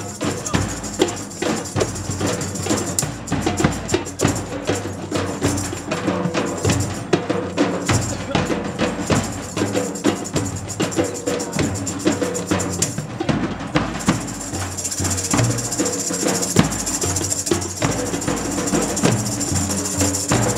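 A large double-headed drum beaten in a quick, steady rhythm, with held pitched notes sounding underneath.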